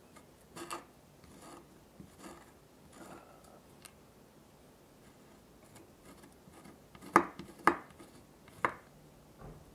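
Small knife splitting and scraping vanilla bean pods on a wooden cutting board: soft scraping strokes in the first few seconds, then three sharper, louder strokes of the blade against the board about seven to nine seconds in.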